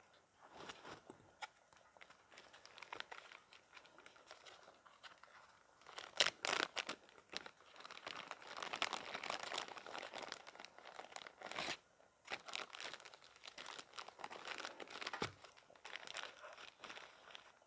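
A tea bag's packet being crinkled and torn open by hand: irregular rustling with sharp crackles, faint at first and busiest from about six seconds in.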